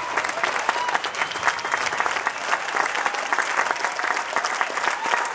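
Theater audience applauding: dense, steady clapping, with a few voices calling out over it.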